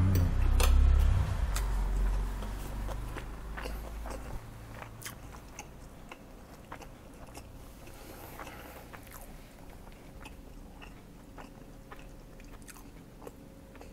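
A person chewing a mouthful of nasi goreng (fried rice) close to a lapel microphone: soft, irregular crunches and small wet clicks, louder in the first few seconds and then quieter.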